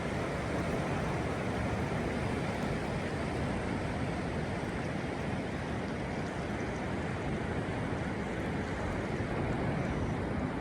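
Steady rush of sea surf breaking on the beach, mixed with wind buffeting the microphone.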